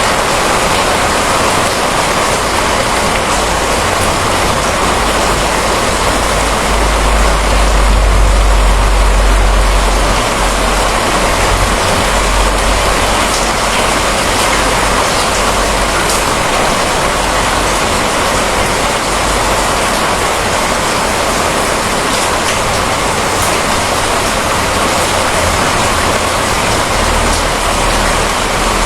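Steady heavy rain, with a low rumble of thunder that swells about seven seconds in and fades a few seconds later.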